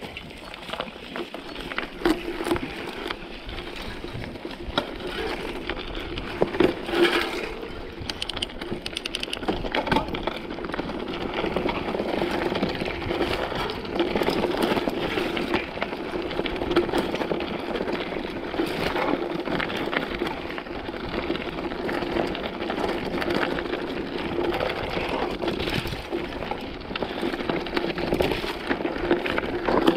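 Mountain bike riding down a rough dirt trail: steady tyre and rolling noise with frequent rattles and knocks from the bike over bumps, and wind on the helmet camera's microphone.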